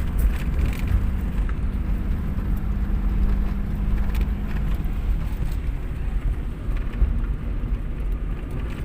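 Steady low rumble with a faint droning hum that fades out about five seconds in, and a few light clicks.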